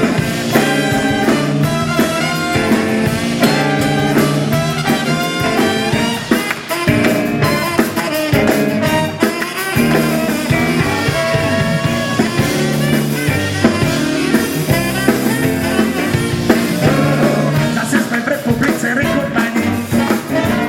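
Rock and roll band playing live, with guitar over a steady beat.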